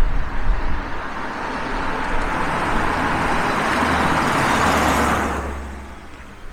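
Peugeot RCZ 1.6 driving past: the engine and tyre noise builds over several seconds, peaks about five seconds in, then fades away quickly. There is a low, uneven rumble at first.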